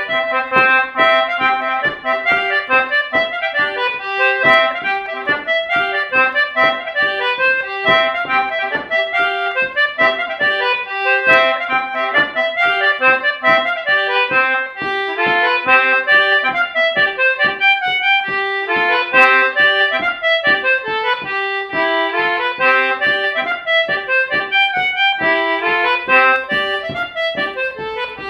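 Solo concertina playing a French-Canadian folk tune: a quick run of short melody notes over sustained lower notes, going on without a break.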